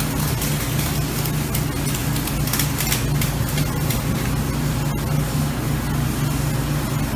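Pipeline welding-station noise: a steady low machinery hum with a continuous crackling hiss from sparking work on the pipe joint.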